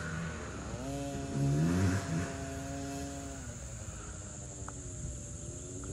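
Small dirt bike engine revving: it picks up about a second in, holds steady for a couple of seconds, drops back around three and a half seconds, and picks up again near the end.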